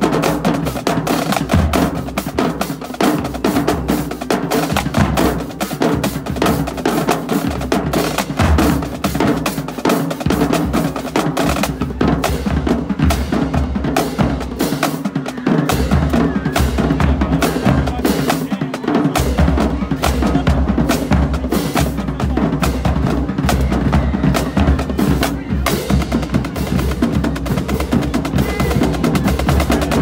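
Marching drumline playing a fast cadence: Pearl marching snare drums with rapid sticking and rolls over pounding bass drums. The low bass-drum notes drop out for a few seconds just past the middle and come back in.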